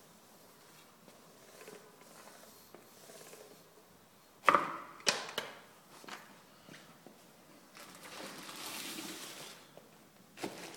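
Knocks and clatters of floor-lacquering gear being handled: a sharp knock about four and a half seconds in, then a couple of lighter ones, and a soft rustle for a second or two near the end.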